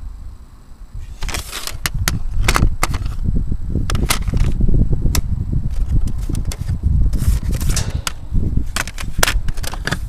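Handling noise on a handheld camcorder's microphone: an irregular low rumble with many sharp clicks and knocks, some in quick runs.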